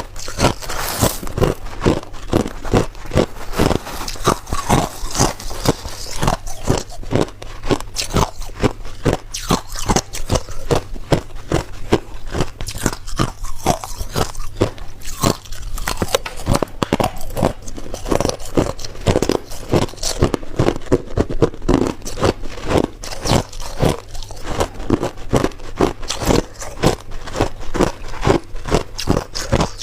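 Ice being bitten and chewed close to the microphone: a continuous run of sharp, loud crunches, several a second.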